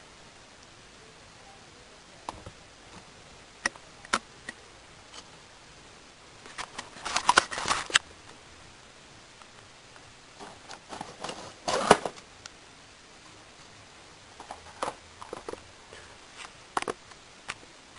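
Handling noise: scattered light clicks, with two louder bursts of rapid clicking and rustling, about seven and about eleven seconds in.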